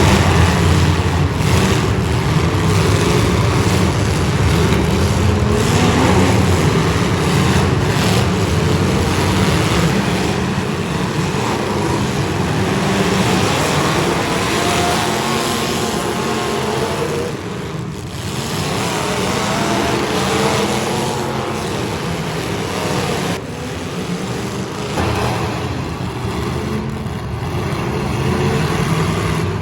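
Several demolition derby cars' engines running loud and revving, rising and falling in pitch throughout.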